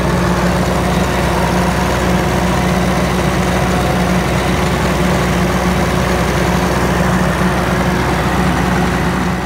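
Cat D6 bulldozer's six-cylinder diesel engine idling steadily, with no change in speed.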